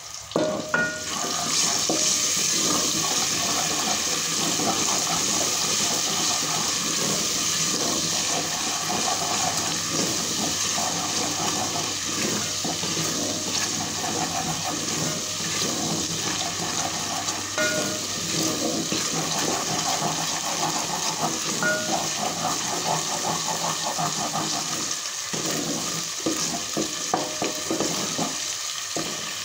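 Garlic-ginger paste sizzling in hot oil in an aluminium pot as it is stirred with a wooden spoon, being lightly fried before the spices go in. A steady, crackling sizzle that starts about a second in.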